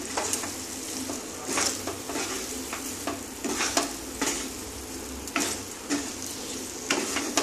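Wooden spatula stirring and scraping thick sabudana khichuri in a kadai on the gas flame, over a steady soft sizzle. Scrapes and knocks of the spatula come irregularly, about once a second.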